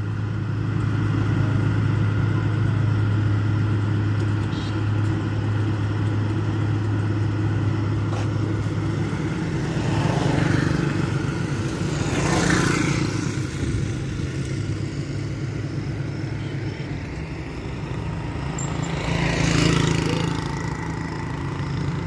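Road roller's engine running with a steady low hum that drops away about nine seconds in. Vehicles pass by three times, each swelling and fading, around the middle and near the end.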